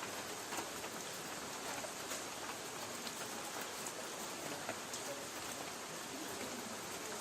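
Light rain falling on a tin roof: a steady hiss with scattered drops ticking on the metal.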